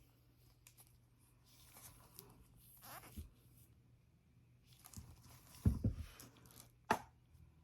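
Gloved hands handling a syringe and medication vial: soft rustling and scraping, with a low thump a little before six seconds in and a sharp click about seven seconds in.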